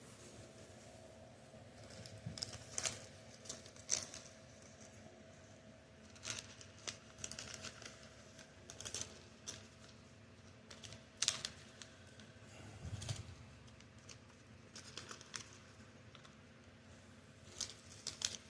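Irregular light clicks, taps and brief rustles of small items and packaging being handled, with a soft thump about two-thirds of the way through.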